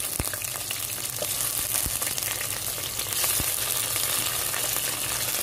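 Prawns frying in hot oil with sliced onions and garlic in a pan: a steady sizzle with scattered small pops and clicks.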